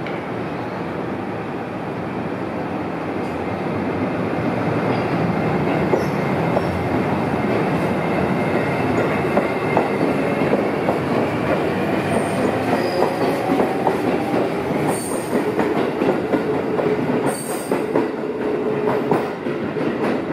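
JR East E653 series electric train pulling away and running past close by, growing louder as it gathers speed, its wheels clicking over rail joints with a few short wheel squeals.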